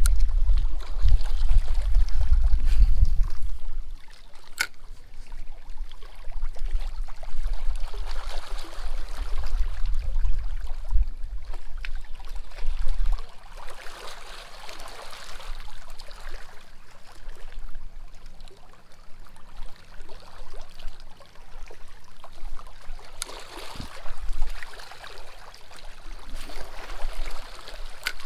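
Small waves lapping and washing against a rocky riprap shoreline, swelling and fading. Gusts of wind rumble on the microphone during the first few seconds and again around ten seconds in.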